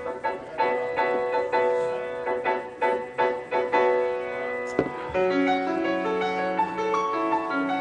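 Piano introduction of a karaoke backing track, a slow melody of single struck notes over sustained chords.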